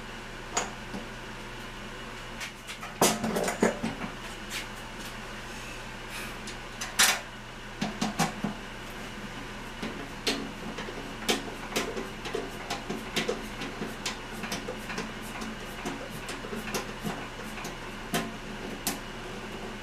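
Hand screwdriver turning sheet-metal screws into the aluminium flange of a fuel tank: irregular small metallic clicks and scrapes, with a few louder knocks of handling about three and seven seconds in, over a steady background hum.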